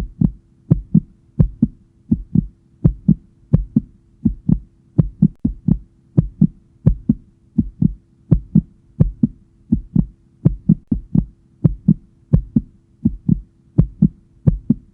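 Heartbeat sound effect: steady double thumps, about 85 beats a minute.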